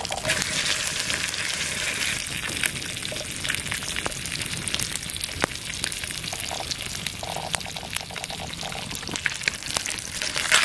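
Small whole brook trout frying in a hot pan over campfire coals: a steady sizzling hiss full of small pops and crackles, flaring up right at the start as the fish goes into the pan.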